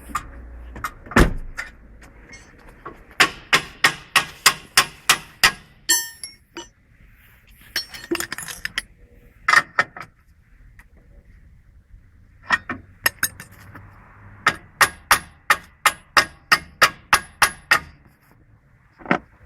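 Quick hammer blows on metal at a car's front suspension, about four a second, in two runs of roughly ten to a dozen blows, with a few single knocks between, while trying to separate the lower wishbone joint.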